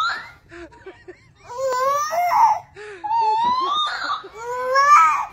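Whimpering, crying wails in a baby's voice: several short cries that rise sharply in pitch, and longer rising wails in the second half.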